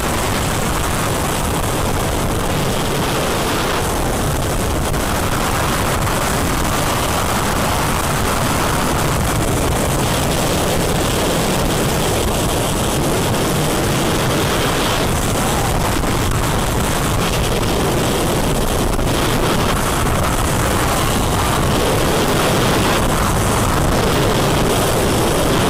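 Steady, loud wind noise on an on-ride camera as the Formula Rossa train, an Intamin hydraulic-launch roller coaster, runs through its course at high speed, with a low rumble of the train on the track underneath.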